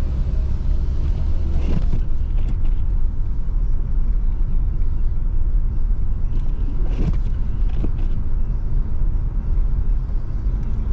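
Steady low rumble of a vehicle driving, heard from inside the cabin, with a few faint knocks.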